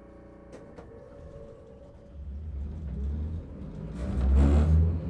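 Toden Arakawa Line streetcar setting off: two sharp clicks about half a second in, then the low rumble of the car's motor and wheels building from about two seconds. Near the end the rumble is at its loudest, together with a loud burst of hiss.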